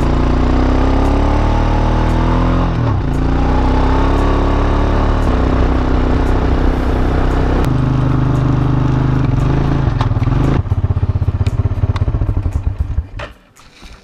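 ATV engine running under throttle as the quad drives along a sandy beach. Its pitch climbs over the first few seconds, dips briefly about three seconds in, then holds high and steady. The throttle eases off about ten and a half seconds in, and the engine falls to a low idle near the end. Light clatter from the machine runs throughout.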